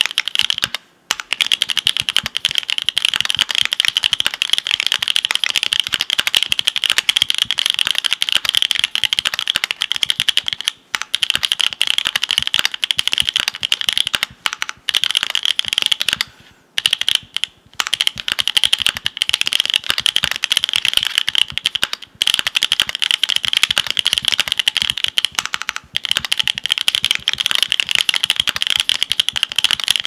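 Fast, continuous typing on a Keychron Q2 aluminium mechanical keyboard with a polycarbonate plate, 43 Studio OP Black linear switches and GMK Modern Dolch2 keycaps. The keystrokes come as a dense stream, broken by a few brief pauses.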